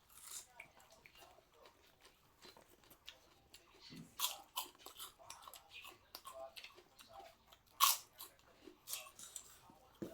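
A person chewing and biting food, with irregular crunches and mouth clicks and one louder crunch about eight seconds in.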